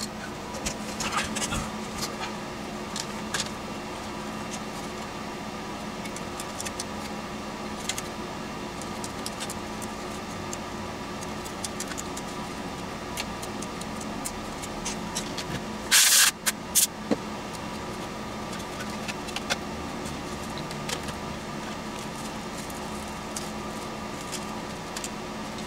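Light clicks and rattles of small metal parts and hardware handled on a workbench, over a steady background hum. A short, loud rasping noise comes about sixteen seconds in, followed by two smaller ones.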